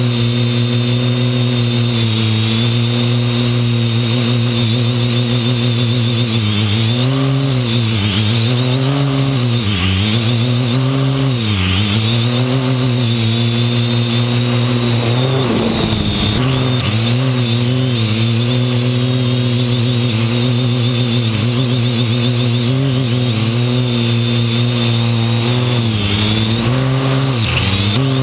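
Parrot AR.Drone quadcopter's motors and propellers running right beside the camera: a loud, steady buzzing drone whose pitch dips and climbs back several times as the drone manoeuvres, with a brief rush of noise about halfway through.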